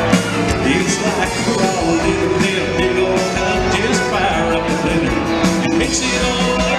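Live country band playing, with electric guitars and a fiddle.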